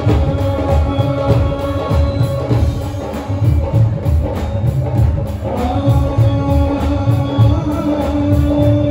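Live stage music over a PA system: a male vocalist sings with a band of keyboard, drum kit and percussion over a steady beat. A long held note comes in about halfway through.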